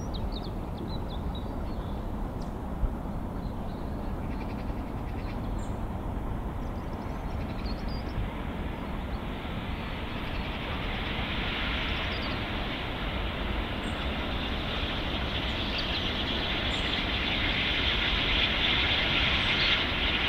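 Steam locomotive working a train of passenger coaches as it approaches, its sound growing gradually louder over the second half.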